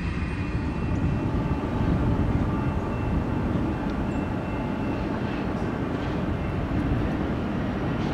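Steady low rumble of a freight train on the move: rolling cars and diesel locomotive engines.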